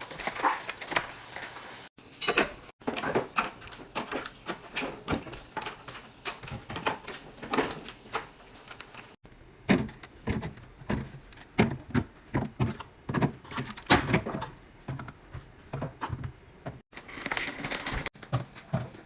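Irregular knocks, clicks and slides of plastic storage bins, containers and jars being handled and set into a refrigerator, broken by a few brief cuts to silence.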